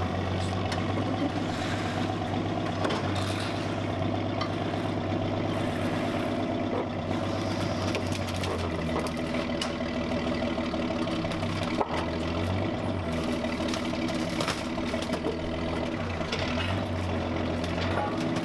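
Large forklift's engine running steadily as it carries and sets down a heavy rolled-up tank track, with a few short knocks.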